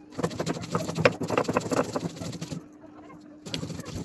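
A sil-batta: a hand-held grinding stone scraped and rubbed back and forth over wet spice masala on a stone slab, gritty and rasping, with a short pause about two and a half seconds in before the grinding resumes.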